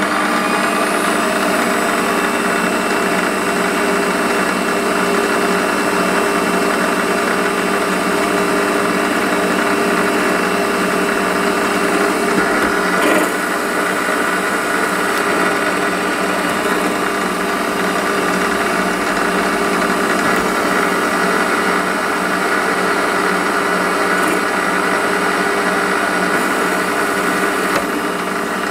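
Warco WM180 metal lathe running steadily at speed, its chuck spinning a 12mm steel bar for turning, with a steady whine. A single click about halfway through, after which it runs slightly quieter.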